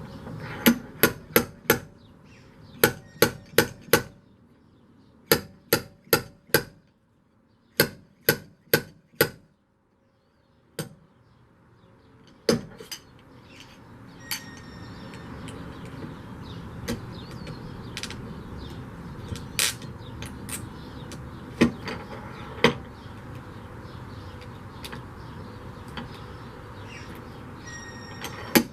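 Hammer blows on the metal of a Jeep windshield frame during bodywork: quick runs of three or four strikes, then single strikes spaced out. A steady background noise builds from about twelve seconds in.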